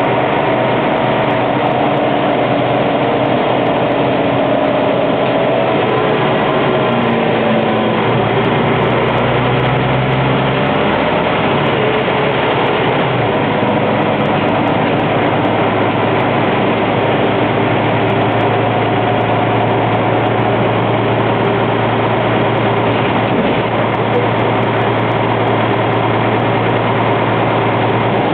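Inside the saloon of a Scania N94UB single-decker bus, its rear-mounted diesel engine running with steady cabin noise. The engine note shifts in pitch between about eight and thirteen seconds in, then holds steady.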